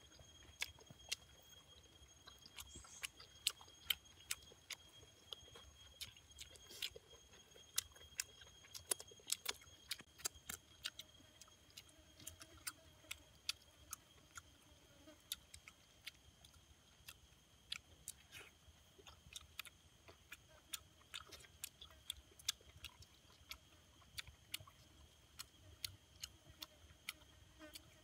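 A person chewing roasted pork with wet mouth clicks and lip smacks in an irregular string, several a second at times. Under it runs a faint, steady high-pitched whine.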